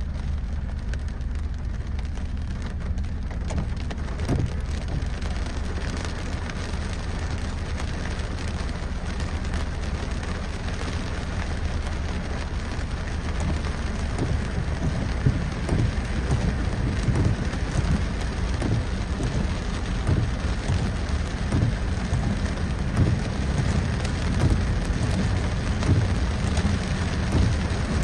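Torrential tropical rain pouring down steadily, with a deep rumble underneath that grows a little louder and more uneven about halfway through.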